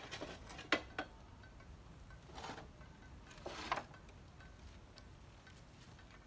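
Loose wooden planks knocking and scraping as they are shifted by hand: two sharp knocks about a second in, then two longer scrapes about halfway through.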